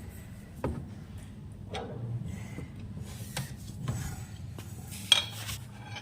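A few sharp clicks and light knocks with some rubbing, as hard parts are handled; one click comes about two-thirds of a second in and another about five seconds in.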